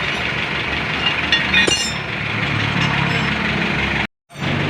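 A vehicle engine idling steadily, with a few light metal clinks about a second and a half in. The sound cuts out briefly near the end.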